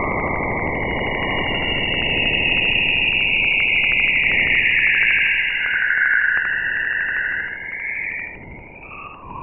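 Juno spacecraft's Waves instrument data from Jupiter's perijove 4 pass, converted to audio: a steady hiss with a bright band of noisy whistling near the top that sinks in pitch around the middle, over a fast, even ticking. It thins out and drops in level near the end.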